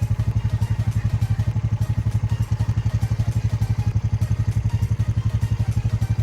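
An engine running steadily with a fast, even low throb.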